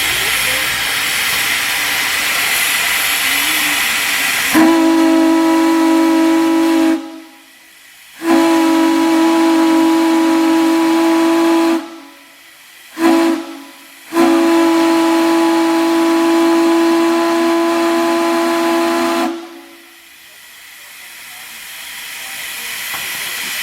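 Railroad steam chime whistle blown in four blasts: two long, a short toot, then the longest. Its several tones sound together as one chord. Steam hisses before the first blast and again after the last.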